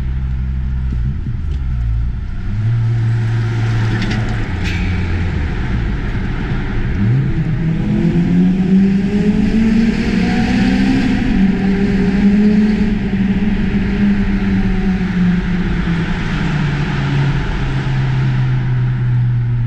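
Car engine pulling hard in a lower gear, heard from the cabin with the window open. The engine note climbs steadily for several seconds about a third of the way in, holds high, then eases back off.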